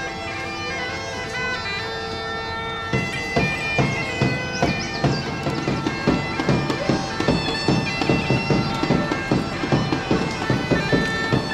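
Bagpipes playing a folk tune over a steady drone. About three seconds in, a fast beat of short percussive strikes joins.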